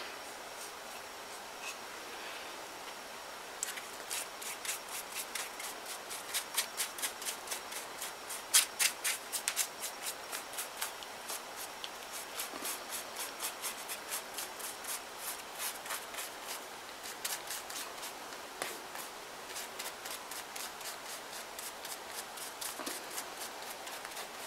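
Flat paintbrush bristles scrubbing over the paper mache surface as a coat of gesso is brushed on, in quick repeated strokes of about three a second, starting a few seconds in.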